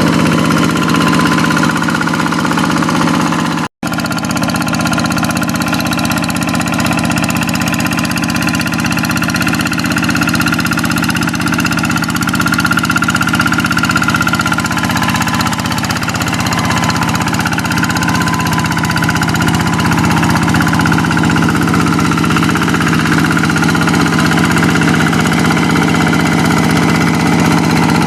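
Kubota single-cylinder diesel engine of a Quick hand tractor running steadily while plowing a rice paddy. The sound drops out for an instant about four seconds in.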